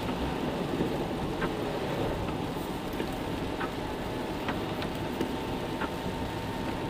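Steady road and engine noise of a moving car heard inside the cabin, with a few faint ticks scattered through it.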